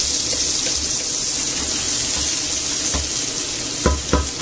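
Chopped onion and garlic sizzling in hot olive oil in a stainless steel pot as they brown, stirred with a wooden spoon. Near the end the spoon knocks sharply against the pot three times.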